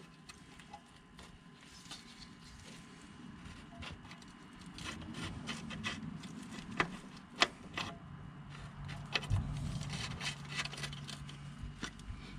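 Small metallic clicks and light scraping as the threaded rod end and nuts of a shift cable are handled and adjusted on a Polaris RZR transmission's shift lever, with two sharper clicks a little past the middle.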